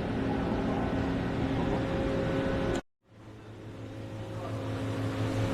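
Hartford X-3240 double column machining centre running, a steady machine hum with several held tones. It cuts out abruptly a little under three seconds in and fades back up to the same hum.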